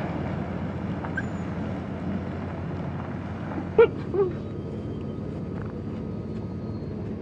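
Two short, high yips from puppies wrestling on the grass, close together about four seconds in, over a steady low hum.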